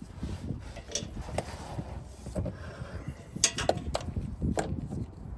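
Irregular knocks and clatter of hand work and handling, with a few sharp clanks about three and a half to four and a half seconds in.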